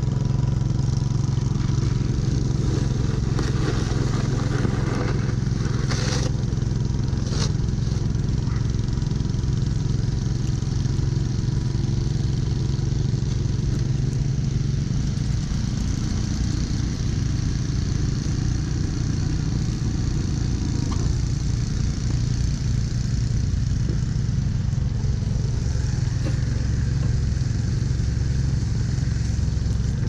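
Snowblower engine running steadily at working speed, a constant low drone. Two brief clatters about six and seven seconds in.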